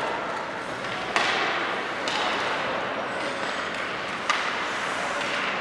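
Sharp knocks and thuds of play over a steady background din. The loudest knock comes just over a second in, with others about two seconds and just over four seconds in.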